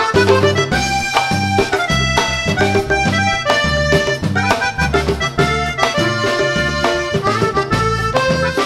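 Live Latin dance band playing an instrumental passage led by accordion, over bass and percussion keeping a steady dance beat.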